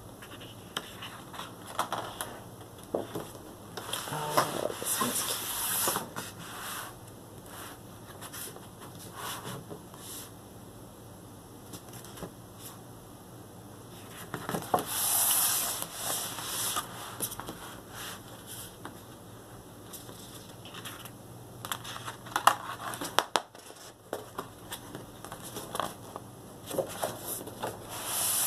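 Heavy paper art prints being turned and handled, rustling and sliding against each other in a few spells, with scattered light taps and clicks between them.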